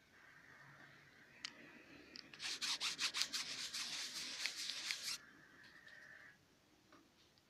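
Quick rubbing and scraping strokes for about three seconds, starting a couple of seconds in, over a faint steady high tone.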